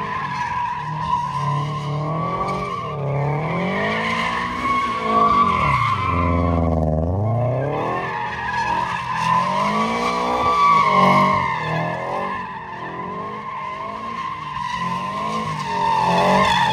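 Sports car doing donuts, its rear tyres squealing steadily while the engine revs rise and fall over and over. The revs drop low for a moment about six seconds in.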